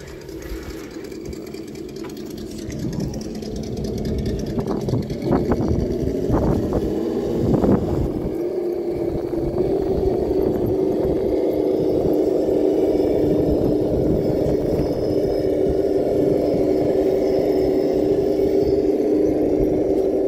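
An engine running steadily with a low, even hum that grows louder about a third of the way in and then holds. A few sharp knocks come earlier.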